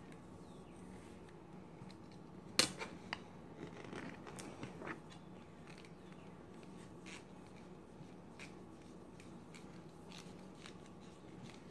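Faint handling sounds of an arrow shaft turned in the hands while an arrow wrap is pressed and smoothed onto it. A sharp click comes about two and a half seconds in, followed by a few lighter clicks and scattered faint ticks.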